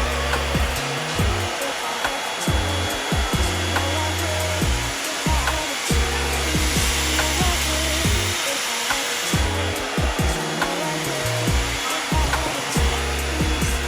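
Hot air brush blowing with a steady hiss, under background music with repeating low bass notes.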